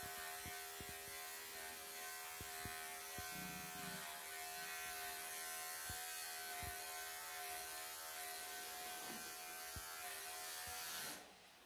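Wahl electric pet clippers with a comb attachment running with a steady hum as they trim a cat's long bib fur, with a few soft ticks. They are switched off suddenly near the end.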